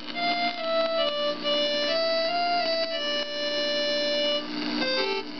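Casio Casiotone CT-301 keyboard's accordion preset playing a melody of held notes, then a few quick lower notes near the end. A steady electrical hum runs underneath, which the owner puts down to a noisy cord.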